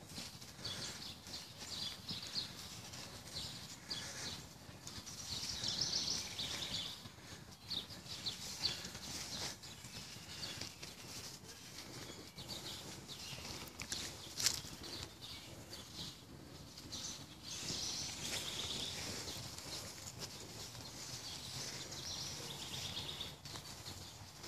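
Outdoor ambience with birds chirping in the background, coming and going in patches. Scattered soft clicks and rustles run through it, with one sharp click a little over halfway through.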